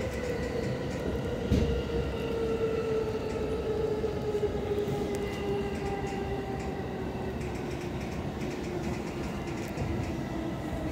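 Electric commuter train heard from inside the car as it slows for a station: the traction motor whine falls steadily in pitch under braking, over the rumble of wheels on rail, with an occasional click from the track.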